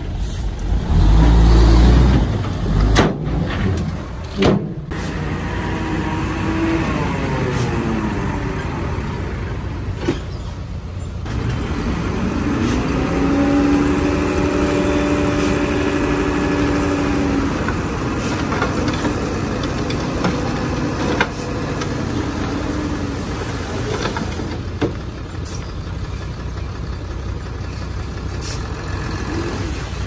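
Heavy diesel engine running and revving, its pitch falling, then rising and holding for several seconds before easing off again. Near the start there is a loud low thump, followed by a few sharp knocks.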